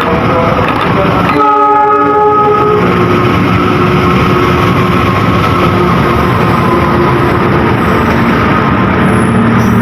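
A train running past loudly, with its horn sounding once for about a second and a half, starting about a second and a half in.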